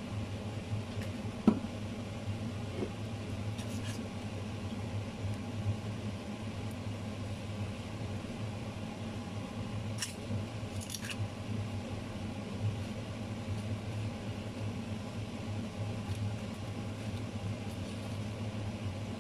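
Steady low hum of a running electric oven's fan. A single sharp click comes about a second and a half in, and a few faint light ticks about ten seconds in.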